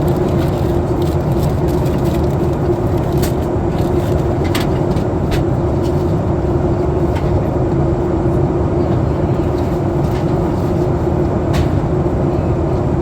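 Steady cabin noise inside a Boeing 737 MAX 8 airliner on descent: a constant rush of airflow and engine hum with one steady droning tone, and a few faint ticks.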